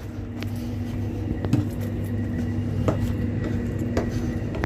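Steady low hum inside a double-deck regional train carriage, with a handful of sharp knocks from footsteps on the stairs and floor.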